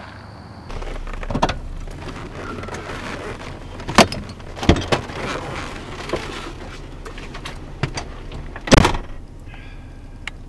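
Inside a parked car: a steady low hum with a handful of sharp clicks and knocks, the loudest about nine seconds in.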